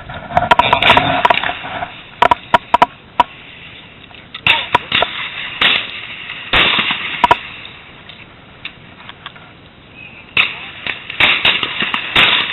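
Shotgun range sounds: a series of sharp cracks and clicks at irregular intervals. The loudest come about two to three seconds in, near seven seconds in and near the end.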